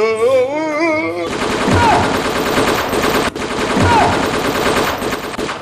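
Machine-gun fire sound effect played loud through a loudspeaker as a fake gunfire prank, starting about a second in as a dense rapid rattle of shots. A falling whine recurs about every two seconds over the fire.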